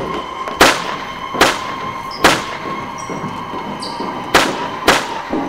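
A series of five loud, sharp bangs at uneven intervals, each with a short echoing tail, over a steady high hum.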